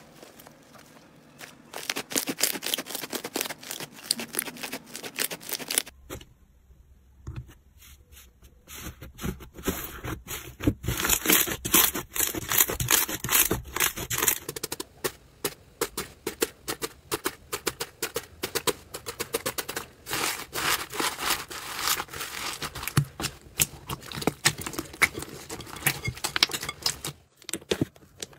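Slime being stretched, kneaded and pressed by hand, giving dense, rapid sticky clicks and crackles. The texture of the crackling changes about six and fourteen seconds in, as one slime gives way to another.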